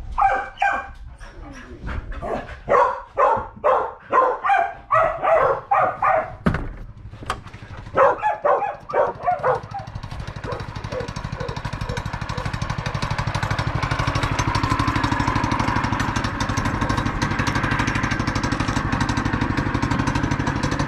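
A dog barks repeatedly for the first nine seconds or so. Then the small engine of a Yerf-Dog 3203 go-kart runs steadily, growing louder about halfway through and holding.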